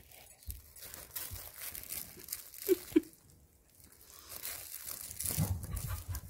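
A corgi chewing and tearing at a plush stuffed pumpkin toy: soft crinkling, tearing and gnawing, with two short pitched notes close together about three seconds in.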